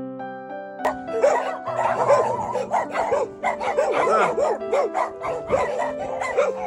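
Background keyboard music. From about a second in, a sled dog whines and yips over it in short calls that rise and fall in pitch, about two a second.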